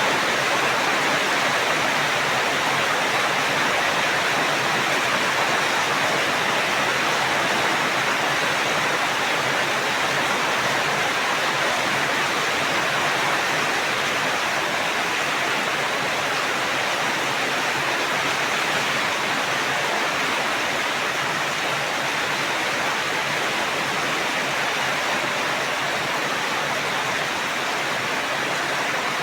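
Steady rain falling, an even hiss that stays at the same level throughout.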